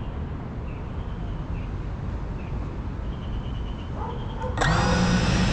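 Steady low outdoor background noise with a few faint bird chirps. About four and a half seconds in, the GePRC CineLog 35 FPV drone's brushless motors start up with a sudden, louder, steady whine as they spin at idle before take-off.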